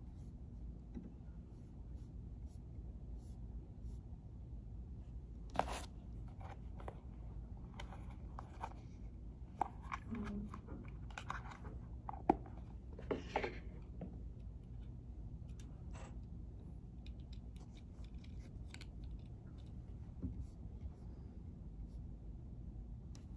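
Quiet library room tone: a steady low hum, with scattered soft rustles and light clicks, busiest in the middle, from someone nearby handling things.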